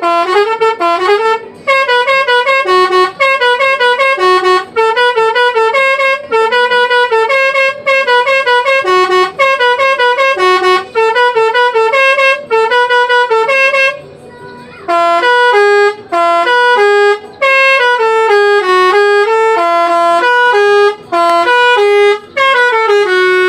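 Telolet musical multi-tone horn on a Basuri bus playing loud melodic tunes. The notes are short and quick at first, then break off for about a second around the middle, and the tune comes back with slower, longer notes.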